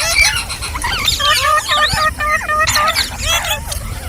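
Green parrots chattering and squawking, a string of sharp swooping calls with a quick run of repeated short notes in the middle.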